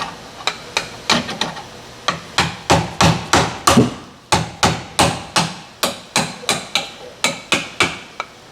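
A hammer striking metal repeatedly, about three blows a second with a few short pauses, knocking on a rear suspension link of the SUV to work it loose.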